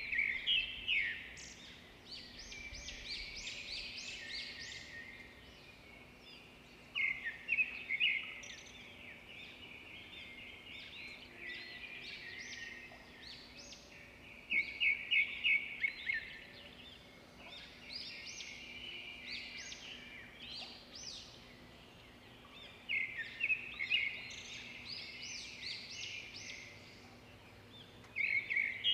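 A songbird singing, with quick chirping phrases repeated every few seconds, over a faint steady hum.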